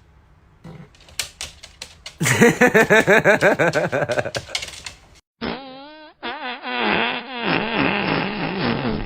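A few sharp clicks, then a long, loud, sputtering fart with rapid pulses that lasts about three seconds. After a short break comes a wavering pitched sound that bends up and down in pitch.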